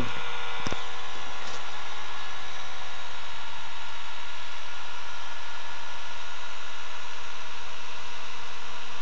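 Small window motor run on a Bedini pulse circuit, giving a steady whir with a faint click under a second in.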